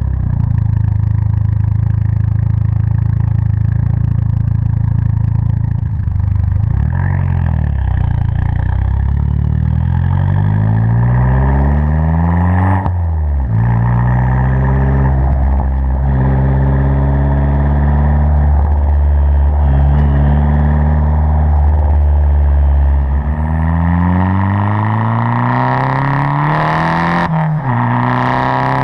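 Abarth 500 esseesse's turbocharged 1.4-litre four-cylinder, fitted with a Garrett 1446 turbo and an aftermarket exhaust, heard onboard under acceleration. The engine pitch climbs and drops back several times as the gears are changed.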